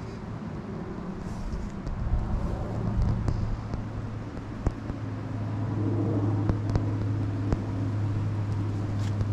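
An engine running steadily, a low hum that grows stronger about two seconds in and then holds, with a few sharp clicks over it.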